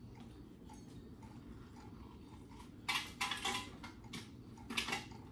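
A few short, light clinks and knocks of kitchen utensils being handled at a counter, starting about three seconds in after a quiet stretch.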